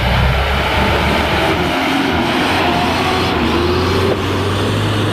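Diesel engines running steadily at close range: a dump truck driving past through deep, rutted mud, with an excavator standing beside the track.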